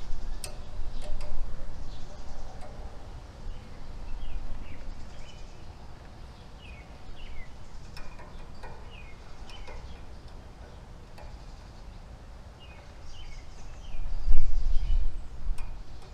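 Small birds chirping in short runs of quick notes, over a low rumbling noise that swells near the end, with a few sharp clicks.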